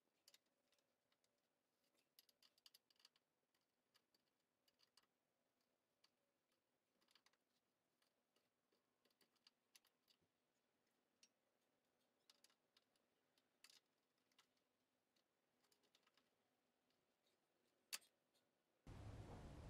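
Near silence with faint, irregular light clicks and taps, and one sharper click near the end. Just before the end, a steady hiss of background noise cuts in suddenly.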